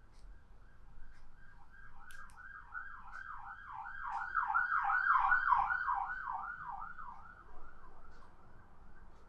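A siren wailing in fast repeating sweeps, about three a second, growing louder to a peak midway and then fading away.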